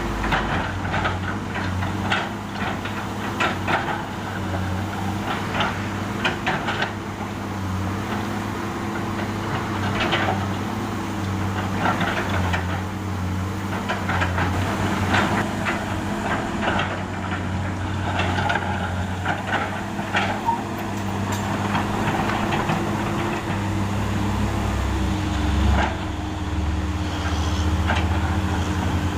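Komatsu PC200 hydraulic excavator working: its heavy diesel engine running steadily under load, with frequent clanks, knocks and scrapes of the bucket against metal and broken asphalt.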